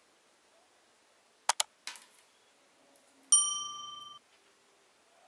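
Like-and-subscribe reminder sound effect: two quick mouse clicks, then a bell-like notification ding that rings for just under a second and ends abruptly.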